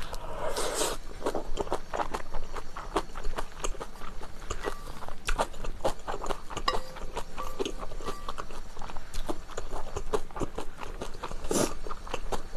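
Close-miked mouth sounds of a person eating wide, chewy Chinese glass noodles in spicy sauce: steady wet chewing with many small clicks, and two short louder bursts, about a second in and near the end, as noodles are taken into the mouth.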